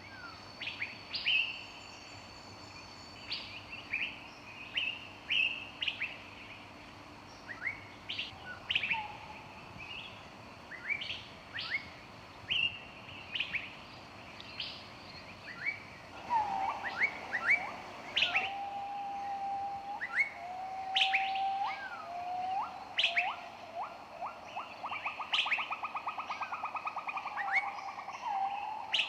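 Several songbirds singing, with quick high chirps and short sweeping notes throughout. About halfway in, a lower bird joins with drawn-out whistled notes and a fast rattling trill.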